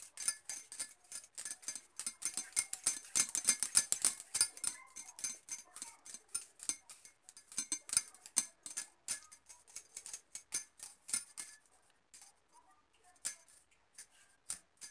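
Bangles on a wrist clinking and jingling in quick, irregular clusters of light ringing clicks as the hands fold and shape dough, thinning to occasional clinks about three-quarters of the way through.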